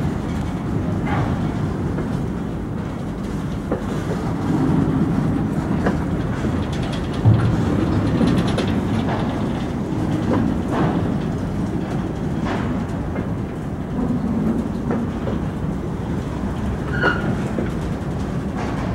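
Freight hopper wagons rolling slowly along the track, pushed by a diesel shunting locomotive. A steady low rumble with scattered wheel clicks over the rail joints, one loud clank about seven seconds in, and a short high squeak near the end.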